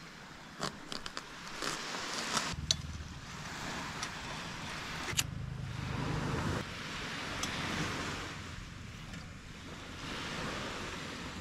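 A few knife chops on a plastic cutting board, then a rushing of surf and wind that swells and eases, with scattered clicks and knocks as a small gas canister stove and its pot are handled.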